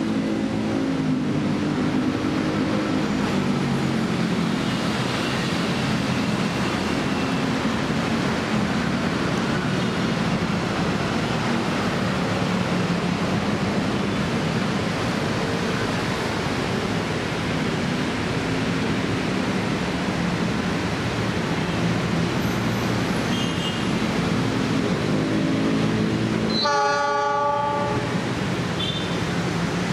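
Diesel locomotive and its passenger train running into a station, a steady engine drone under rolling wheel noise. Near the end the locomotive's horn sounds once, for about a second.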